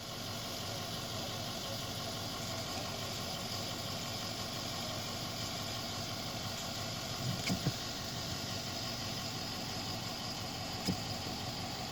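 A car engine idling steadily, with a few brief knocks a little past halfway and one near the end.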